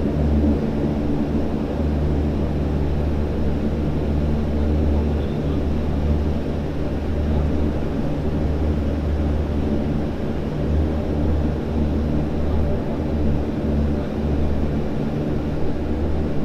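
A Fokker 50's turboprop engines and propellers running at taxi power, heard from inside the cabin beside the engine. It is a steady low propeller drone whose deepest note wavers slightly.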